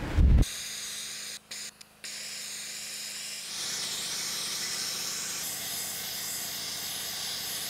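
Sandblasting: compressed air and abrasive grit hissing steadily from a blast nozzle onto steel plate, with two brief gaps about a second and a half in. The hiss grows louder and brighter about halfway through.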